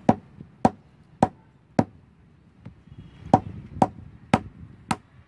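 A hand-held stone knocking an almond in its shell to crack the shell open. There are eight sharp knocks, about two a second, in two runs of four with a pause of about a second and a half between them.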